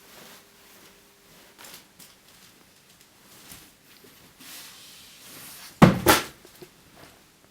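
Soft rustling, then a sudden double thump about six seconds in, like something heavy being shut or knocked.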